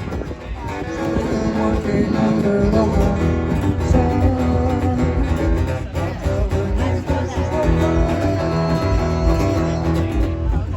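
Live performance of a blues-rock song: a guitar-led instrumental passage without vocals.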